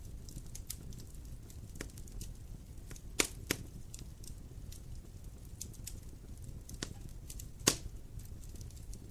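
Wood fire crackling and popping: a steady low rumble of burning under scattered sharp snaps, with a few louder pops about three seconds in and again near the end.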